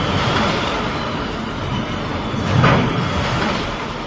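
Heavy truck driving by, a steady engine and road noise that swells once about two and a half seconds in.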